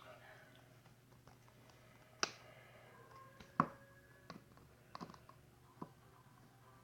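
Handling noise while toothpaste is squeezed from its tube into a bowl of flour: a handful of separate light clicks and taps, the two sharpest about two and three and a half seconds in.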